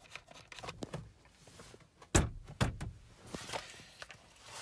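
Scattered knocks and clicks of things being handled. The loudest are a dull thud about two seconds in and a second one half a second later.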